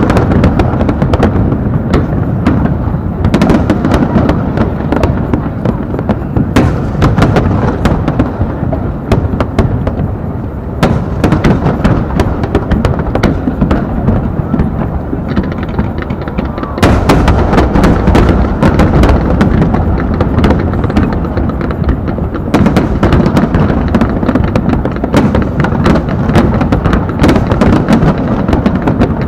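Fireworks display: a dense, continuous barrage of shell bursts and crackling over a heavy low rumble. It eases briefly about ten seconds in, then picks up again and stays intense from about halfway on.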